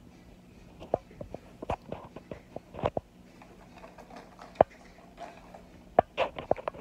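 Light handling noise: scattered small clicks and taps, with a sharper click about four and a half seconds in, over a faint steady low hum.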